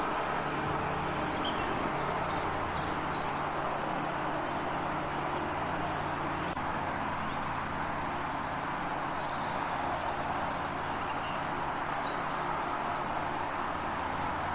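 Small birds chirping in two short spells of high twittering, near the start and again a little over halfway through, over a steady low hum and hiss like distant traffic.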